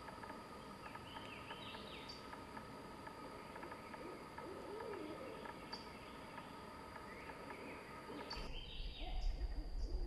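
Faint wild songbird calls: short high chirps and a few quick falling trilled phrases, over a steady insect drone. A low wavering hoot-like call sounds about halfway through, and a low rumble comes in near the end.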